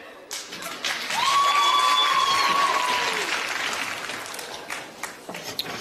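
Studio audience applauding, building up about a second in and dying away near the end, with one held high tone over the applause for a couple of seconds.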